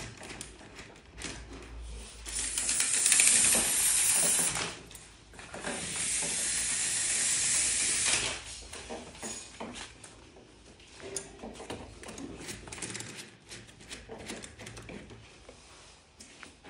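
Vinyl-louvred vertical blind on a Vogue head rail being worked by its wand: two long swishes of the louvres sliding and brushing together, the first about three seconds in and the second after a short break, with light clicks and rattles of the louvres and their carriers throughout.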